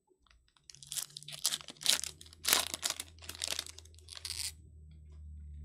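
Foil wrapper of a 2022 Topps Allen & Ginter Chrome pack being torn open and crinkled by hand: a run of sharp crackling rips that starts under a second in and stops about a second before the end.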